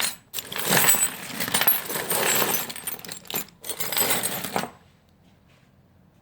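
A heap of loose metal keys and key blanks clattering and jingling as hands rummage through it, in several bursts with short breaks, stopping about three-quarters of the way through.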